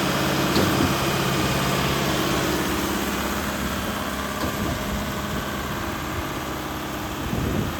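Four-cylinder Deutz BF4M 2012 diesel engine of a Putzmeister TK70 concrete pump idling steadily, its hum easing slightly a few seconds in, with a brief swell near the end.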